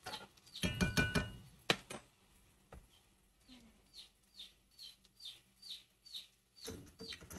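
A metal spoon stirs and scrapes onions in a cast iron skillet, ending in a sharp clink as the spoon is put down. Then a bird chirps about ten times, short high calls that each fall in pitch, about two and a half a second.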